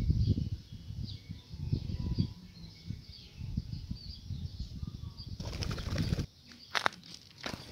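Spotted doves' wings: low thumping at first, then a burst of wing flapping about five and a half seconds in as the doves take off, and a couple of sharp wing claps near the end.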